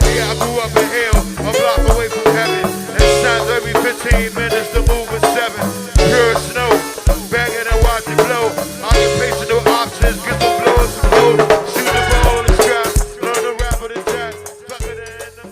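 Live band music with a steady drum beat, bass line and a rattling shaker, fading down near the end.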